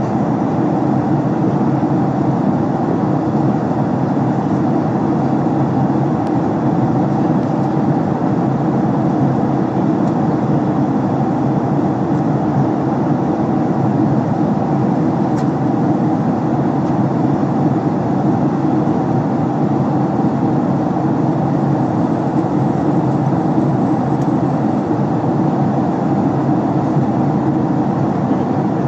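Steady cabin noise of a Boeing 767-300 airliner in flight: an even drone of airflow and engines heard from a passenger seat.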